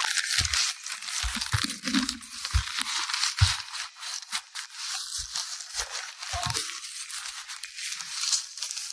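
Handling noise from the recording device: its microphone rubbing and rustling against fabric, with many small scrapes and scattered low bumps.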